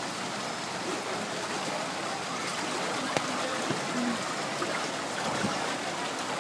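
Steady hiss of rain and running water on a flooded street, with a few faint ticks, the sharpest about three seconds in.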